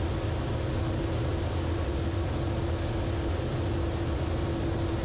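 Steady cockpit drone of a Zenith CH 650 in level cruise: its direct-drive, air-cooled four-cylinder engine and propeller at economy cruise power, with airflow noise and a steady hum.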